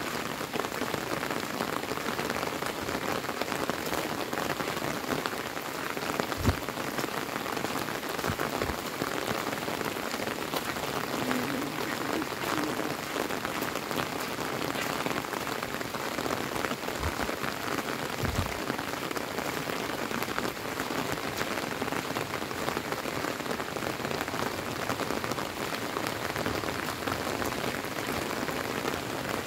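Steady rain falling on a gravel road and roadside vegetation, an even hiss of drops, with a few soft low thumps about a quarter and again two-thirds of the way through.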